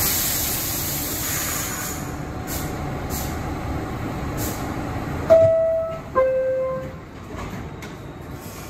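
Inside an R62A subway car: steady rumble with a high hiss of air that fades over the first two seconds. About five seconds in, the two-tone door chime sounds, a higher note then a lower one. After it the car noise drops.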